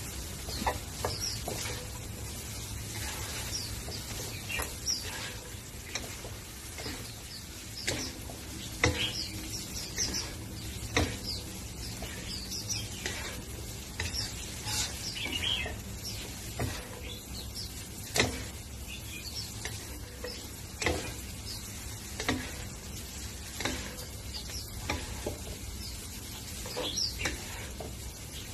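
Wooden spatula stir-frying yellow egg noodles and cabbage in a nonstick wok, with irregular clacks and scrapes against the pan over a steady frying sizzle.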